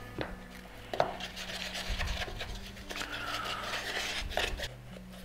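Wooden stirring stick scraping around a paper cup as it mixes thickened epoxy glue: a sharp knock about a second in, then a steady rasping scrape for about three and a half seconds.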